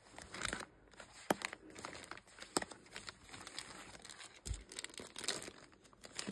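Plastic mailing bag crinkling and rustling as it is handled, with irregular sharp crackles.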